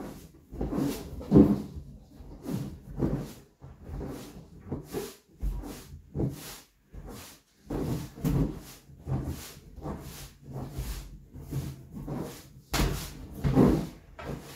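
Inflatable exercise balls rubbing and creaking against jeans, hands and the floor as a person bounces and shifts on them: a series of short irregular rubbing noises, about one or two a second, loudest near the end.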